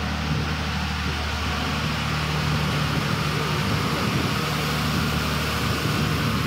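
Diesel engine of a standing passenger train idling: a steady, even low hum with a noisy hiss over it.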